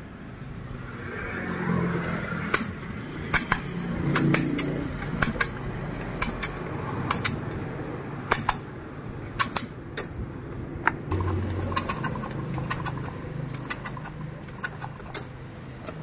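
Irregular sharp metallic clicks and clinks of hand tools working on a small motorcycle engine, with a low rumble that swells a couple of times.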